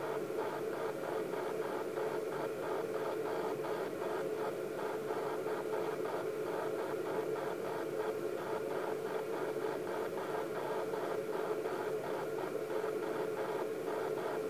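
Steady hiss with a constant hum and a faint even pulsing of about two or three a second, coming through the speaker of a video baby monitor.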